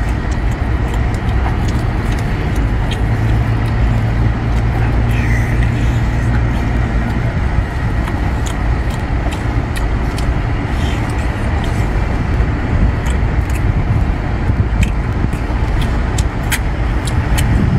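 A steady low rumble, with many small clicks and smacks from a person chewing and eating seafood scattered over it.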